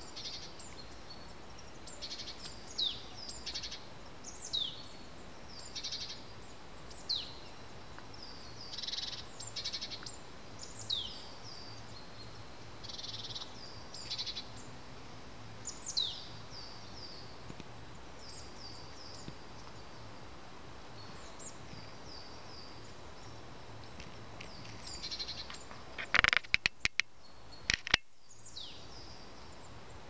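Small birds calling: short high chirps and quick falling whistles every second or two over a faint steady hiss. Near the end comes a quick run of sharp clicks, the loudest sound.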